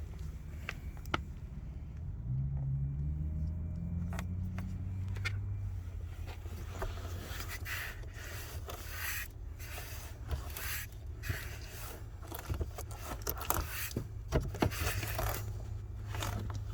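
Dry rustling and scraping of a cabin air filter and mouse nesting material being handled at the open filter housing, getting busier from about seven seconds in. A steady low hum runs underneath.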